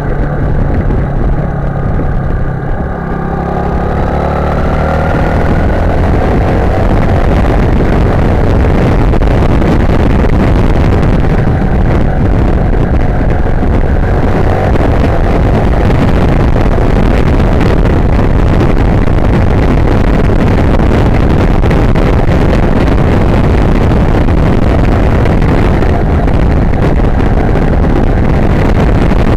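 Sym Wolf 150 motorcycle's single-cylinder engine running on the road, its pitch rising over the first few seconds as it accelerates. After that a steady rush of wind on the bike-mounted microphone covers most of it.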